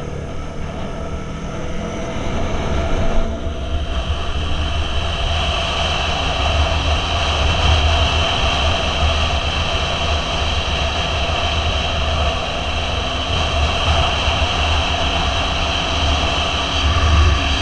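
Motorcycle engine pulling away, its revs rising, with a gear change about three seconds in. It then runs steadily at cruising speed under heavy wind rush on the bike-mounted microphone.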